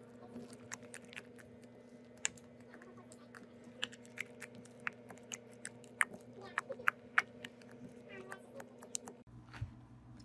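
Purple glue slime being kneaded and poked by hand, making irregular sharp wet clicks and pops, several close together at times, over a steady low hum. The clicking stops and the background changes abruptly about nine seconds in.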